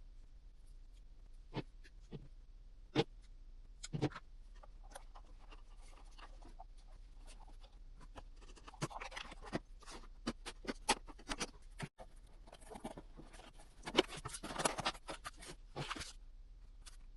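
Handling noises from working on a cardboard model plane: scattered light clicks and taps, with two stretches of scratching and rustling, one about nine seconds in and one about fourteen seconds in.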